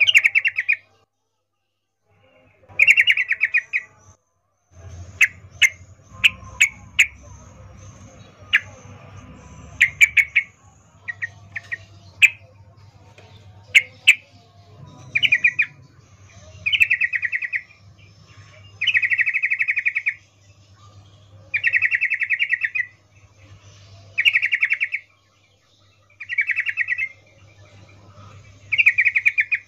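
Yellow-vented bulbul (trucukan) calling. Short sharp chip notes come through the first half, then buzzy chattering phrases about a second long repeat every two seconds or so. It is presented as a female's breeding-condition call, used as a lure to set males singing.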